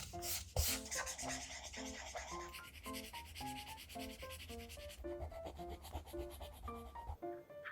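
Paper being rubbed and scrubbed against paper, a dense scratchy rubbing that stops about five seconds in. A light, plucked-sounding background melody plays throughout.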